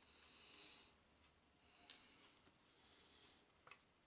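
Faint breathing through the nose close to the microphone, three breaths under a second each, with a couple of light clicks from small parts being handled.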